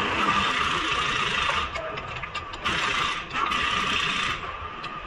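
A ratchet wrench turning a bolt on the front lower control arm (suspension arm), running in long stretches. It stops about one and a half seconds in, runs twice more, and ends in a few separate clicks near the end.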